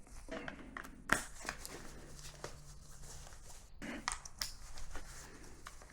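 Faint handling noise from a tree saddle's straps and buckles being fitted: soft fabric rustling with a few light clicks, the sharpest about a second in.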